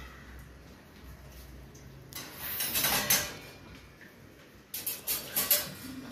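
Kitchen pots and utensils being handled: a brief rushing swish about two seconds in, then a quick run of clinks and knocks near the end.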